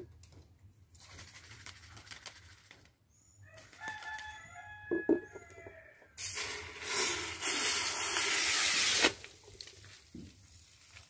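A shaken plastic Pepsi bottle is opened about six seconds in: a sudden loud hiss of carbonated soda foaming and spraying out under pressure, lasting about three seconds. Before that, a rooster crows in the background.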